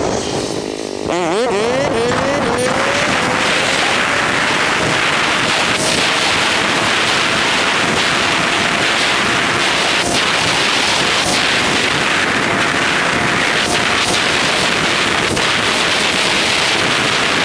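Motorcycle ridden at speed, heard from a helmet camera in a sped-up recording: the engine's pitch wobbles quickly up and down at first, then heavy steady wind noise over the microphone takes over, with a faint engine tone rising slowly underneath and a few sharp clicks.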